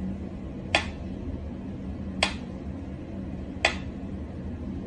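Mechanical pyramid metronome ticking at a slow tempo: three sharp ticks about a second and a half apart.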